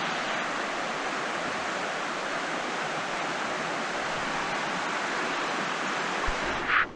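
Steady rushing noise like running water, with a brief louder hiss near the end before it cuts off suddenly.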